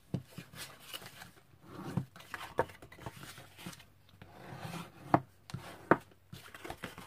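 Cardstock being folded along its score lines and burnished flat: soft rubbing strokes and light taps on the work surface, with two sharper knocks about five and six seconds in.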